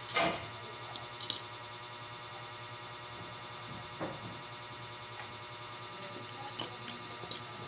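A few scattered short clicks and taps, one near the start, one about a second in, then others about four and six to seven seconds in, over a steady hum with faint steady tones.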